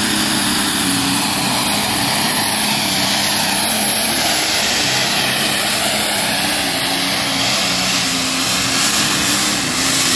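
Diesel pulling tractor at full throttle dragging the weight sled, a loud, steady engine note with a high thin whine over it for the first half of the pull.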